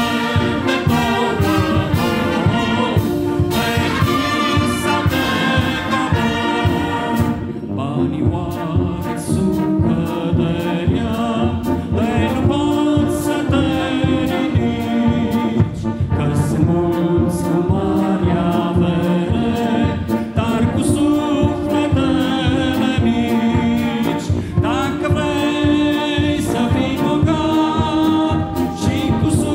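Brass band of trumpets, trombones and tubas playing a hymn, with many voices singing along in chorus.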